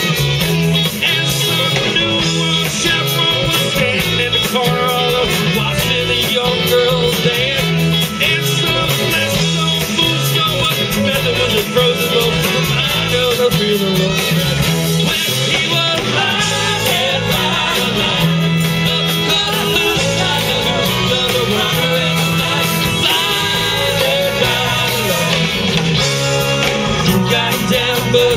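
Live rock band playing at full volume, electric guitars and keyboards over a steady beat, with a lead singer.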